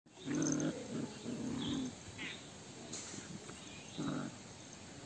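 Puppies growling while they play-fight, in three short low spells: near the start, around a second and a half in, and about four seconds in.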